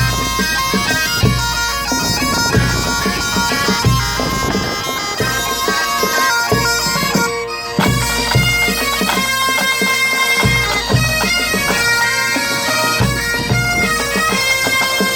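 A Breton bagad pipe band playing: bagpipes over a steady held drone carrying the melody, with bass drum beats about every second and a half.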